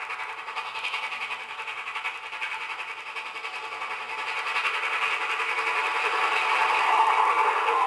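Steam locomotive working past with a freight train, a steady rushing sound with a fast rhythmic beat that grows louder as it comes close, loudest near the end.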